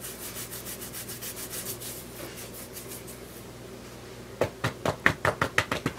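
Hands scratching and rubbing a dog's coat: a quick, rhythmic rasping of about six strokes a second, faint at first and much louder and brisker from about four and a half seconds in.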